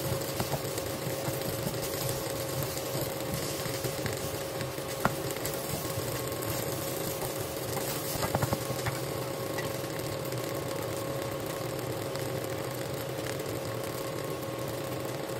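Fried rice sizzling in a hot pan while a wooden spatula stirs and turns it, over a steady hum. A sharp knock about five seconds in and a short cluster of knocks around eight seconds, the spatula striking the pan.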